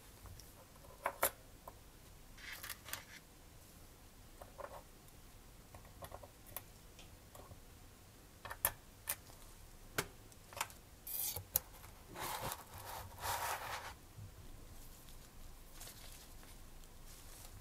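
Small metal model-engine parts being handled with gloved hands and tweezers: scattered light clicks and taps, with a longer stretch of rustling past the middle.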